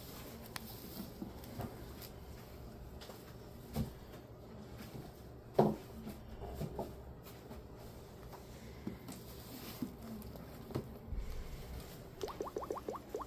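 Quiet room with scattered small knocks and handling sounds, one louder knock about halfway. Near the end a quick rattle of about eight clicks in a second.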